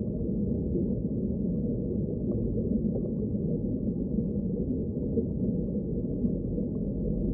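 Steady, muffled underwater ambience: a deep, even wash of water noise with no high sounds in it and no distinct calls or events.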